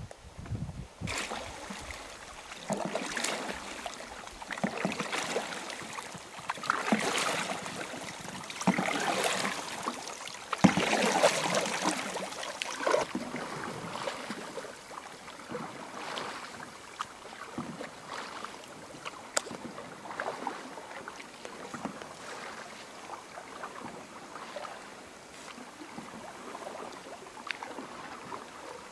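Canoe paddle strokes splashing and water washing along the canoe's hull, swelling and fading every couple of seconds and loudest around the middle.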